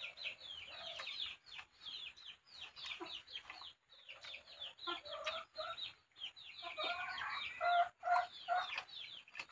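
Chickens: chicks peeping in quick, high, falling chirps throughout, with a hen's lower clucks about five seconds in and again a couple of seconds later.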